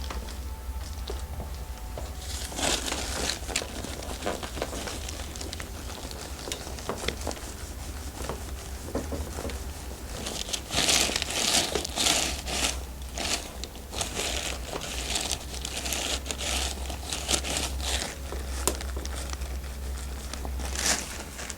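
Rustling and crinkling of hands working a massage over a client's skin, hair and the table cover, in irregular strokes that get busier and louder about ten seconds in, over a steady low hum.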